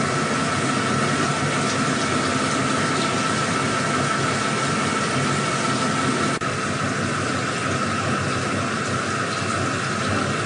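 CNC machine running steadily: a constant high whine over a rushing, hiss-like noise, with an abrupt change at a cut about six seconds in.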